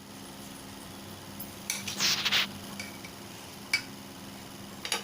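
Metal spoon clinking and scraping in a pressure cooker pot while stirring leaves with water: a few light clinks and one longer scrape about two seconds in.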